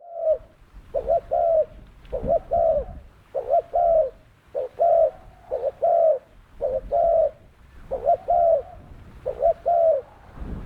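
Spotted dove cooing its song over and over: each phrase is a short note and two longer, arched coos, repeated about once a second.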